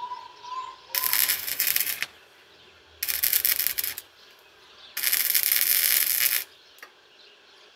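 TITANIUM Easy-Flux 125 flux-core wire welder arc crackling in three separate welds, the first two about a second each and the last about a second and a half, with quiet gaps between them.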